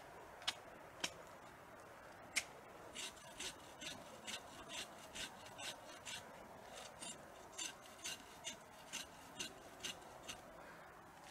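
Bark being stripped from a windthrown tree with a blade. A few sharp chops in the first couple of seconds, then a steady run of short scraping strokes, about two a second.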